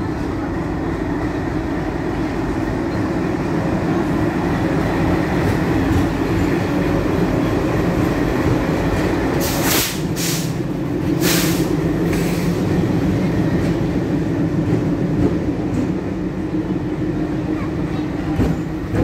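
Diesel locomotives of a multi-engine consist (two ALCO and one EMD) running with a loud, steady engine drone. About ten seconds in, a few short bursts of air hiss cut through.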